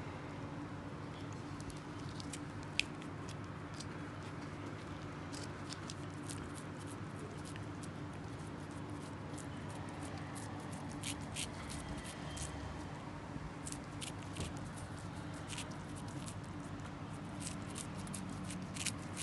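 A cat licking Churu paste from a squeeze tube: a run of quick, wet, clicking laps that grows busier from about five seconds in, with one sharper click early on. A steady low hum sits underneath.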